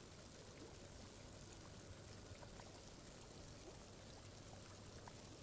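Faint, steady trickle and bubbling of water from an air-lift pipe, compressed air rising through it and lifting water out at the surface of a small planted tank, with a few tiny drips.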